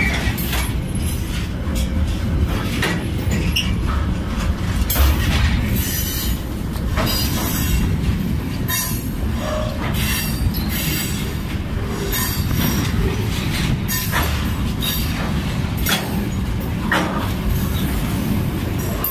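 Freight train's hopper wagons passing close by: steel wheels rolling on the rails in a steady low rumble, with irregular knocks and clanks throughout.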